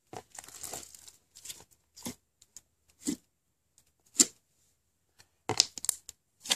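A hand poking, squeezing and pulling a large mass of slime: short, irregular squishy pops. The loudest comes about four seconds in, and a quick run of them follows near the end.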